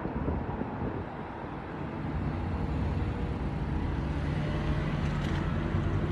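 A motor vehicle's engine: a steady low drone that comes in about halfway through and grows louder, over outdoor background noise.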